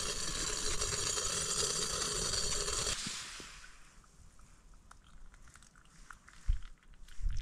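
A metal pot heating water on a small camping stove gives a steady hiss for about three seconds, then fades. Hot water is then poured from the pot into a collapsible cup, with faint trickling and light ticks and two soft thumps near the end.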